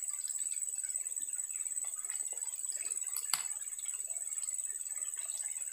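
Outdoor ambience: a steady high-pitched insect drone with faint scattered ticks, and one sharp click about three seconds in.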